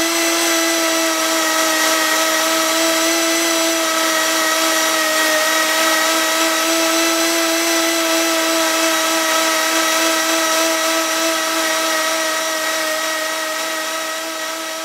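Hand-held HDPE extrusion welding gun running while purging weld rod: its motor drives the extruder screw with a steady whine over a hiss, getting a little quieter near the end.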